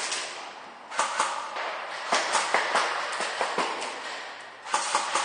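Airsoft guns firing in rapid strings of shots, in several bursts: one about a second in, a longer one from about two seconds in, and another near the end. The shots echo around a large, empty concrete building.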